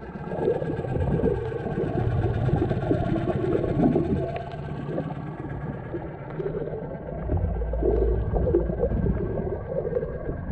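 Outboard motor and its spinning propeller heard underwater: a steady mechanical hum with several held high tones over a low rumble. The rumble grows louder about seven seconds in.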